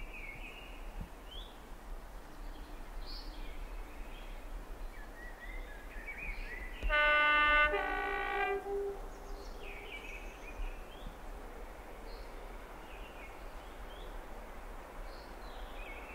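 Class 37 diesel locomotive sounding its two-tone horn about seven seconds in: a higher note, then a lower one, lasting about a second and a half in all.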